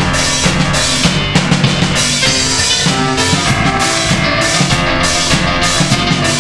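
Recorded music with a drum kit and keyboard run through guitar-amp effects, played back over room loudspeakers; steady beat with regular drum hits under sustained keyboard notes.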